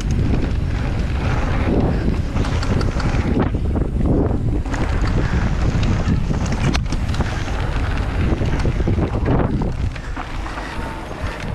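Wind rushing over a mountain biker's action-camera microphone during a fast descent on a dirt trail, mixed with tyre noise on the dirt and occasional sharp clicks and knocks from the bike. It eases off about ten seconds in as the bike slows.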